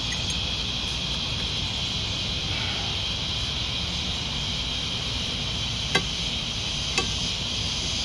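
Two sharp metallic clicks about a second apart, near the end, as the lowered bottle jack and the pressed brake shoe are handled in the homemade steel press. Underneath is a steady background hiss and hum.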